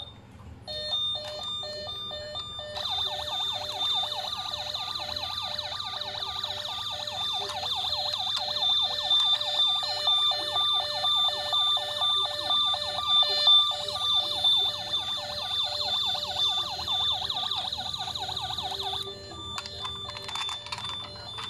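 Toy police car's electronic sound module playing beeping tones, then a fast warbling siren sound effect from about three seconds in that cuts off suddenly a couple of seconds before the end.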